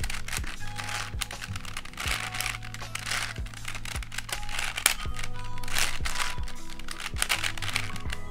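Rapid plastic clicking and clacking of a 5x5x4 cuboid twisty puzzle as its layers are turned one after another, over steady background music.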